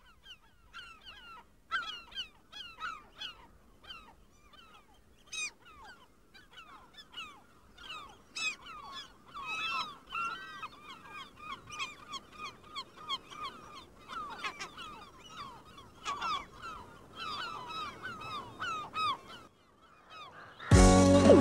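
A flock of birds calling, many short overlapping calls repeated throughout. Loud music starts near the end.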